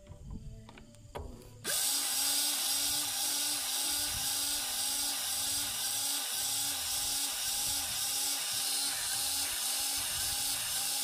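Lincoln cordless grease gun switched on about a second and a half in, its motor then running steadily with a regular pulse about twice a second as the pump strokes grease into a fitting. A few faint clicks come before it starts.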